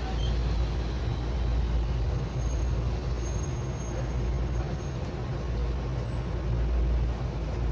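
Steady low rumble of a Tokyu Setagaya Line 300 series tram, heard from inside the passenger car, with a faint thin high whine in the middle.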